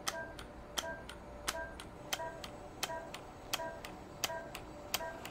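INTRAcel fractional radiofrequency microneedling device firing pulse after pulse as its handpiece is stamped across the skin. A sharp click with a short beep comes about every 0.7 seconds, with fainter clicks in between.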